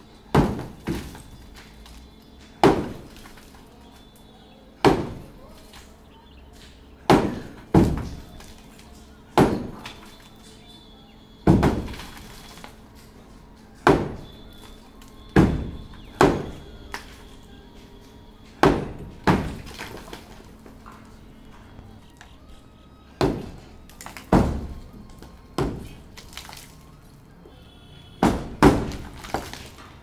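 Sledgehammer blows smashing a concrete roof slab in demolition: a sharp heavy impact every second or two, irregular, with some blows landing in quick pairs near the end.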